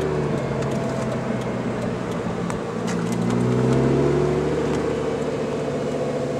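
Lamborghini Gallardo Spyder's V10 engine heard from inside the open-top car. It runs at low revs, then rises in pitch and gets louder about three seconds in as the car accelerates, and holds the higher revs.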